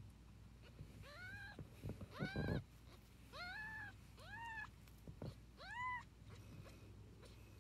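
A newborn kitten mewing five times, high thin cries that each rise and fall in pitch, about a second apart. A soft handling bump comes with the second mew.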